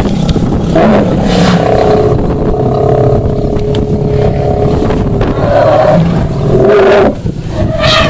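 Vehicle engine running with a steady low rumble, and a drawn-out steady tone over it from about one second in until about five seconds in.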